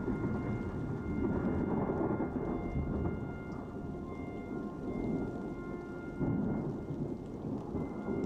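Continuous low rumble, like distant thunder, with faint held musical tones above it.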